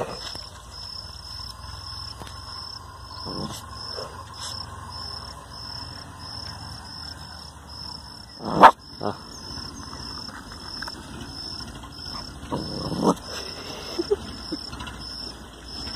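A puppy gives one sharp bark about halfway through, with a smaller sound just after and a brief low growl-like sound later on. A high, regular insect chirp pulsing about twice a second runs behind throughout.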